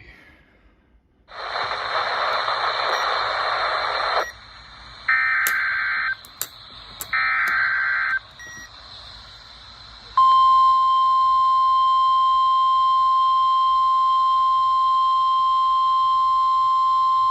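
NOAA Weather Radio alert opening: a few seconds of hiss, then two short bursts of warbling digital data from the SAME header. About ten seconds in, the steady 1050 Hz warning alarm tone starts and holds, announcing a severe thunderstorm warning.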